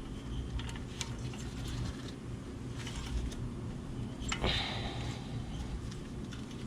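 Scattered light clicks and a brief scrape from hands and tools working on the brake caliper's pad spring and guide-pin hardware, over a low steady background rumble.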